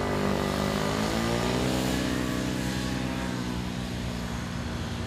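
Motor scooter and motorcycle engines pulling away, their pitch rising over the first couple of seconds and then holding steady.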